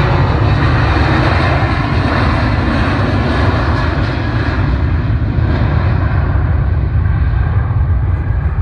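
Boeing 737 airliner's twin jet engines running at high power as it speeds down the runway: a loud, steady rush of jet noise whose upper hiss thins out near the end as the aircraft draws away.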